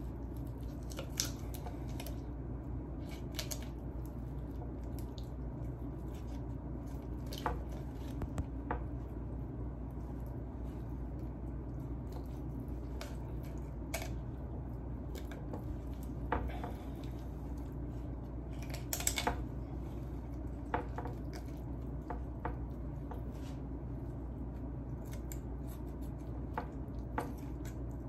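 Scissors snipping through a raw chicken's backbone and rib bones: scattered sharp cuts at irregular intervals, over a steady low hum.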